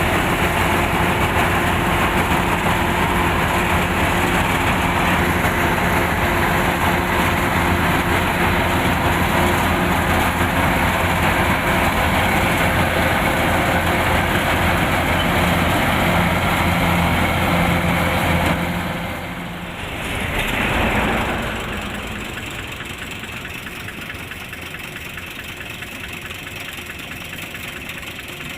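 Kubota rice combine harvester's diesel engine and threshing machinery running steadily and loud. About two-thirds of the way through the sound drops away, swells briefly, then settles to a quieter, steady running.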